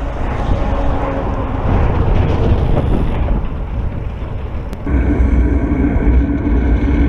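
Heavy tipper trucks passing close alongside a bicycle: loud, continuous engine and tyre rumble. About five seconds in the sound changes abruptly to a steadier engine drone with a held pitch as another truck and trailer goes by.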